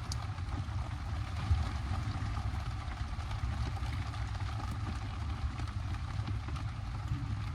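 Heavy rain falling on a tarp, with scattered drop ticks over a steady low rumble.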